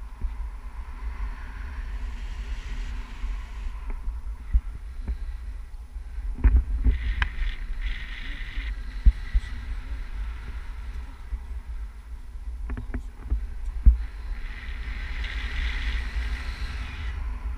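Wind buffeting the camera microphone on a tandem paraglider in flight: a steady low rumble with patches of rushing hiss and a few sharp knocks.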